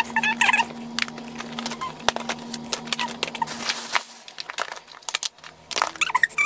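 Eyeshadow palettes in cardboard boxes and plastic cases being handled and stacked, a string of sharp clicks, taps and rustles. Short high squeaks from an animal come in at the start and again near the end.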